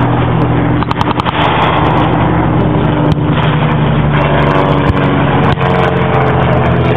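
Propeller aircraft engine droning steadily overhead, with a few sharp cracks of blank gunfire, mostly about a second in.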